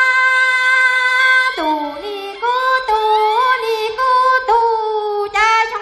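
A woman singing solo into a microphone in a high voice. She holds one long note for about a second and a half, then drops lower and moves through shorter notes that slide up and down in pitch.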